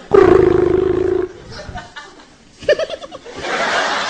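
A man's voice imitating a phone ringing with a steady buzzing trill for about a second, as the call back is placed. Near the end the audience breaks into laughter and applause.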